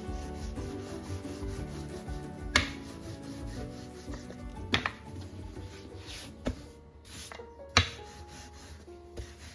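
Dough being handled on a wooden work surface: rubbing and scraping with about five sharp knocks, one every second or two, over soft background music.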